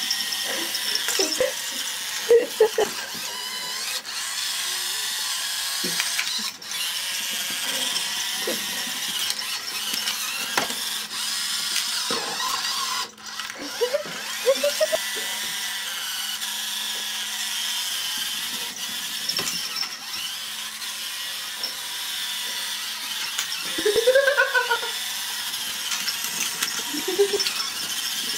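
Small electric motor of a toy race car whirring steadily, with scattered knocks and rattles of the plastic car. A few short, bending, voice-like sounds come about two seconds in, around the middle and near the end.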